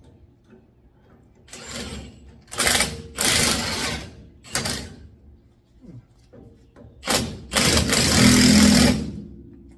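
Impact wrench hammering in four bursts, the longest about two seconds near the end.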